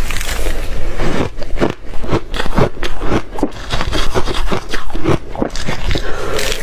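Soft reshaved ice being bitten and chewed: a dense, irregular run of crisp crunches, several a second.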